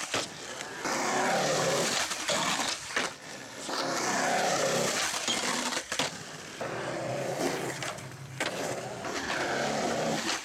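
Skateboard wheels rolling over a concrete skatepark, a steady rumble that comes in several runs with short breaks between them, with a couple of sharp clacks of the board.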